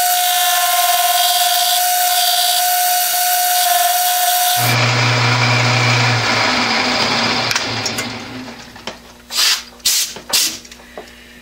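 Metal lathe taking a cut on hard steel hex bar with a round-nose tool, the cut chattering with a steady high-pitched squeal. About four and a half seconds in the squeal stops abruptly, and the lathe's lower hum fades away. A few sharp knocks come near the end.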